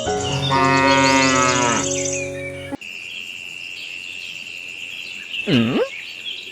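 A cow mooing loudly for about two and a half seconds, the call bending in pitch, then cutting off abruptly. A steady high tone follows, with a short swooping glide near the end.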